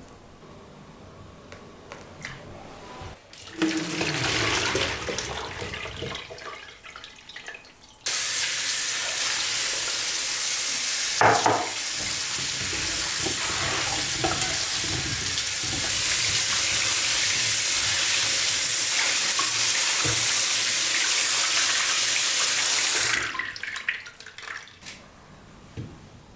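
Tap water running into a kitchen sink: a steady rush that starts about a third of the way in, grows stronger about halfway through, and cuts off shortly before the end.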